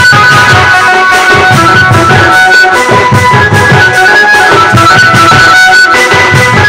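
Dhimsa dance music, loud and continuous: a high melody of held notes over a steady drum beat.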